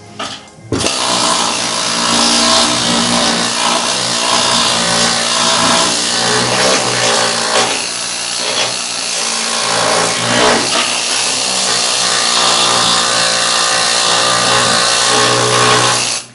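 Harbor Freight pneumatic needle scaler hammering heavy undercoating off a car's steel underbody. It starts about a second in, runs steadily, and stops abruptly at the end.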